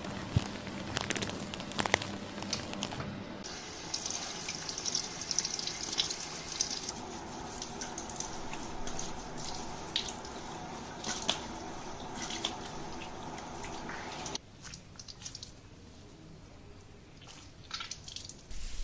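Water running from a salon shampoo-basin spray head over hair into the sink, a steady hiss with scattered clicks and taps, cut off suddenly about four seconds before the end.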